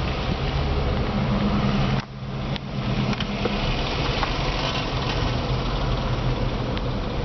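Car engine running steadily under a constant hiss. The sound drops away briefly about two seconds in.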